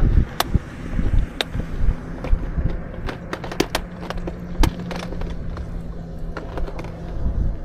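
Irregular sharp clicks and knocks over a low rumble, with a faint steady hum from about a second and a half in until near the end.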